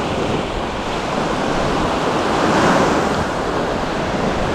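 Small waves breaking and washing up on a sandy beach, a steady rush of surf, with some wind on the microphone.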